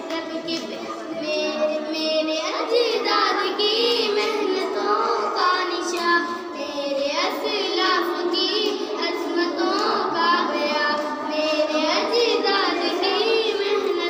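Girls singing a tarana, an Urdu song, into a handheld microphone, with long held notes that waver in pitch.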